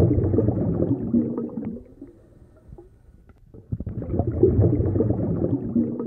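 Bubbling, gurgling water sound in two long bursts, with a quieter gap of about two seconds between them.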